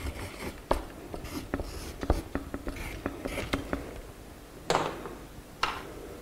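Crayon strokes on paper: a run of short scratches and light taps as stripes are coloured in, then two louder brief rustles near the end.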